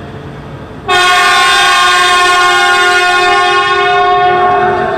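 Horn of an E4 series Max double-decker Shinkansen sounding one long, loud, steady note that starts abruptly about a second in: the warning horn given as the train departs the platform.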